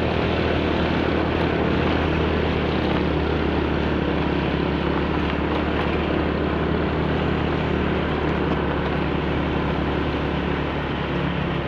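Small motorcycle engine running steadily while riding, under a steady rush of road and wind noise.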